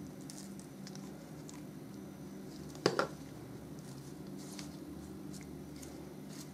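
Faint rustling and small crackles of potting soil being spooned into a plastic cup and pressed down around an African violet leaf cutting with latex-gloved fingers, over a low steady hum. One sharp double knock about three seconds in.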